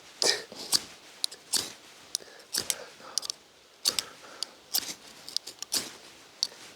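Short, sharp scrapes at irregular intervals, about seven of them: a Zippo Mag Strike ferro rod being struck to throw sparks onto tinder.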